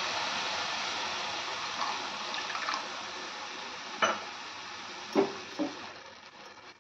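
Grated carrots cooking in ghee and milk in a nonstick pan, sizzling steadily as a little water goes in to help them cook through. A wooden spatula knocks against the pan three times, about four and five seconds in, and the sizzle fades toward the end.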